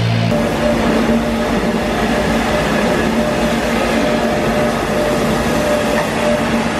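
Street-sweeper truck running with its rotating brushes on the cobblestones: a dense, steady rumble and hiss with a steady hum over it.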